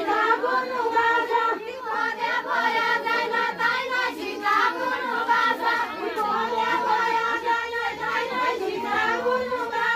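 A large group of women singing a festival song together, many voices overlapping without a break.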